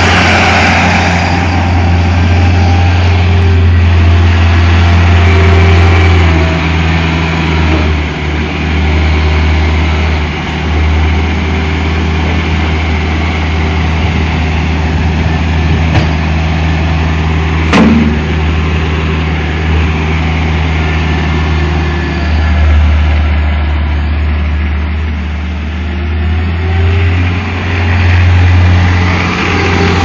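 Tracked skid steer loader's engine running steadily, its level rising and falling a little as the machine works. Two sharp knocks about halfway through, a couple of seconds apart.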